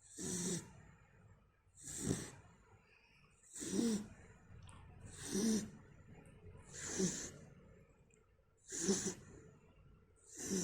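Snoring, seven snores at an even pace of about one every 1.7 seconds, each a short rasp with a low tone and a breathy hiss.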